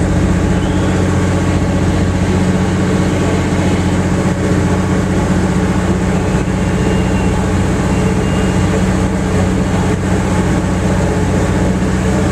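Tour boat's motor running steadily: a constant low hum with no change in speed.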